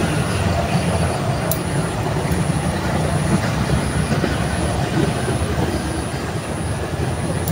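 Steady rumbling background noise with no clear events, and a faint high-pitched chirp repeating a little more than once a second.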